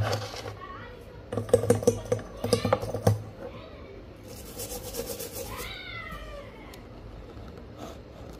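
Small tools clicking and clattering on a workbench for about two seconds, then a short hiss, then a single falling, meow-like call.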